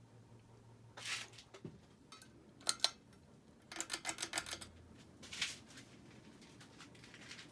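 Several sharp clicks and a quick run of rattling ticks in the middle, over a faint steady low hum.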